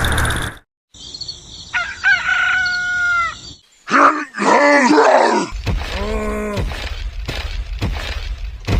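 A rooster crowing about two seconds in: one drawn-out call that rises, holds and falls away. Several more rising-and-falling animal calls follow.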